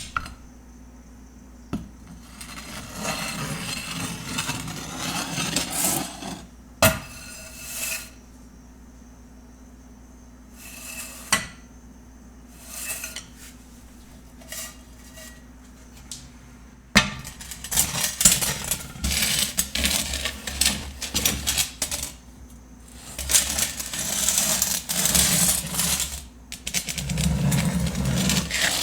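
Metal pots and pans clanking and rattling as they are handled, along with kitchen drawers being slid and knocked shut; several sharp knocks stand out, and the clatter grows busier past the halfway point.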